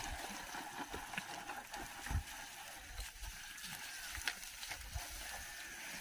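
A yoked pair of bullocks drawing a wooden plough through dry soil: a steady rushing scrape with a few soft low thumps.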